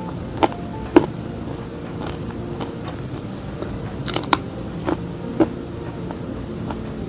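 Crisp shredded sweet-potato fritters being bitten and chewed, with sharp crunches about half a second and one second in, and a cluster around four to five and a half seconds.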